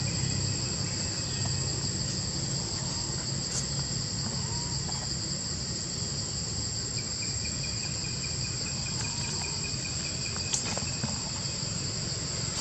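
Steady, high-pitched chorus of insects in the undergrowth, unbroken throughout. A fainter, lower rapid trill joins about halfway through and stops a few seconds later.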